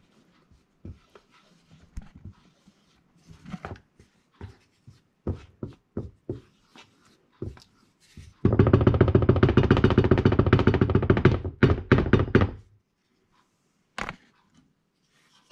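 A wooden spatula stirs thick tomato sauce in a frying pan, with scattered light knocks and taps against the pan. About two-thirds of the way through, a loud, rapidly pulsing buzz runs for about four seconds and then stops.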